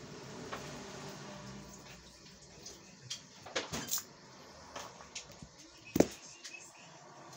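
Scattered clicks and knocks of metal tools and parts being handled while working on a car drive shaft, with a cluster of clinks around the middle and one sharp knock about six seconds in.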